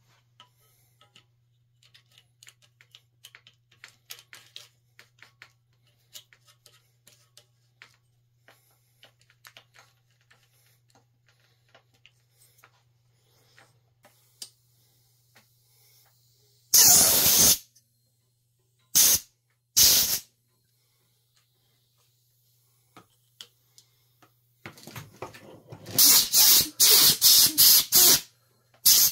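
Compressed-air blow gun hissing in short blasts at the handlebar: one blast of about a second, two brief ones, then a rapid string of blasts near the end. Before the blasts, faint clicks and taps of parts being handled.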